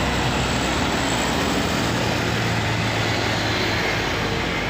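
Bus engine running steadily as the bus passes, a low drone over an even rush of road noise.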